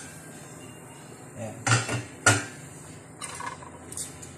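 Metal-on-metal clinks of a stainless steel pot lid and metal kitchen tongs: three sharp clinks in quick succession around the middle, the last the loudest, then a few lighter taps near the end.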